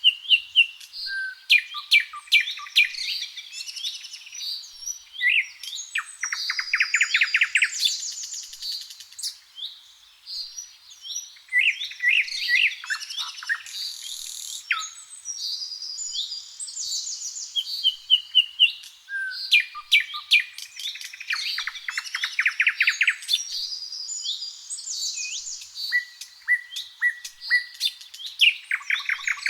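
Several songbirds singing at once in a garden chorus, with overlapping chirps, whistled notes and rapid buzzy trills. The song phrases repeat in the same order about every 18 seconds.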